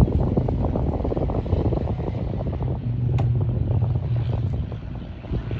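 Cirrus SR22T's turbocharged six-cylinder engine and propeller running as a steady low drone, with wind buffeting the microphone. A single brief click about three seconds in.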